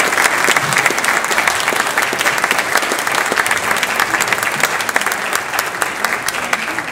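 Audience applauding, a dense steady clapping that swells at the start and fades away near the end.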